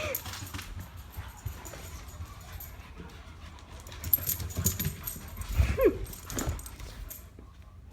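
Excited dog moving about, with scattered thumps and clicks and one short, falling whine about three quarters of the way in.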